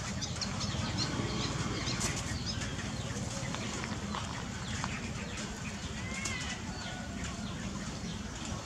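Rustling of fresh lettuce leaves being handled and sorted by hand, with a few faint, short high chirps.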